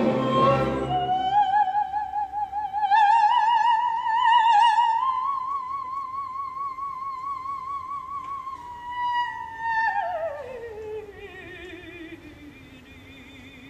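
Operatic soprano singing with a wide vibrato. The orchestra cuts off about a second in, and she climbs to a long high note held for several seconds, then sings a falling phrase to a lower, softer note near the end.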